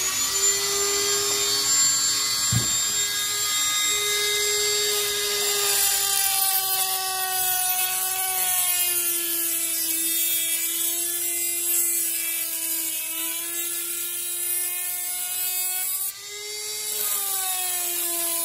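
Dremel rotary tool with a cutoff wheel spinning up and cutting a screwdriver slot into a Chicago screw: a steady high motor whine whose pitch sags partway through as the wheel bears into the metal, then rises again near the end.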